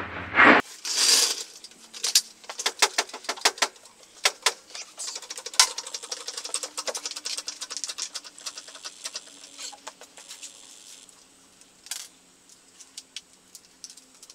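A run of quick, irregular clicks and taps over a faint steady hum, thinning out after about eleven seconds.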